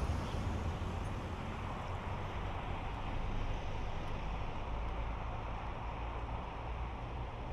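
Steady road noise of a car driving at expressway speed: an even low rumble of tyres and wind.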